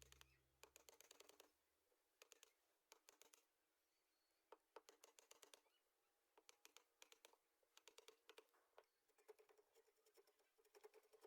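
Faint small clicks and light scratching in short irregular clusters, several ticks close together, then a pause.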